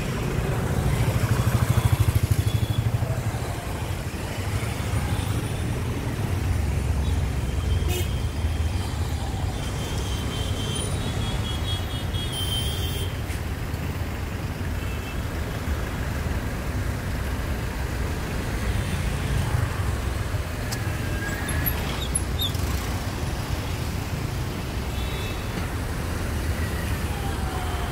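Slow-moving, congested road traffic: car and motorcycle engines running in a steady low rumble, loudest about two seconds in as two-wheelers pass close by.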